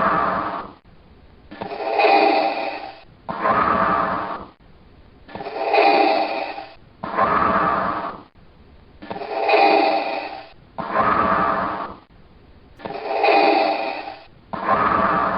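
Darth Vader's respirator breathing sound effect: a slow, regular in-and-out breath through a mask, each breath a hollow mechanical hiss, about four full breaths in all. The effect was made by breathing through a scuba regulator.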